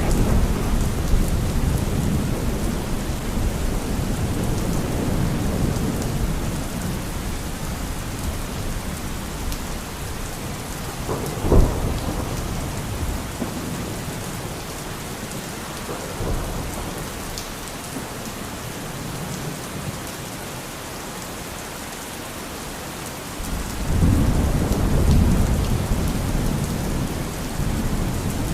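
Thunderstorm: steady heavy rain with rolling thunder. The rumble fades after the opening seconds, a sharp crack of thunder comes a little before the halfway point, and a fresh roll of thunder starts about four-fifths of the way through.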